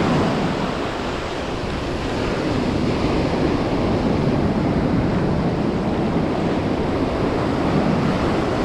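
Ocean surf breaking and washing on a beach, a steady rushing wash, with wind buffeting the microphone.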